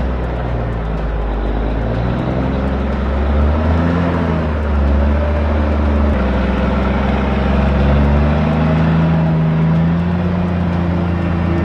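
Heavy truck engine labouring under load on a steep uphill climb with a heavy payload, its note rising and falling as it pulls.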